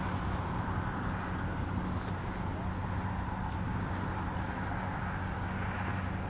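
A steady low engine hum under an even wash of outdoor noise, with no change in pitch or level.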